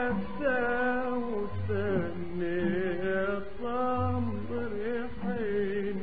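Old, narrow-sounding recording of Arabic music: an ornamented melodic line with vibrato, and a low note returning about every two and a half seconds.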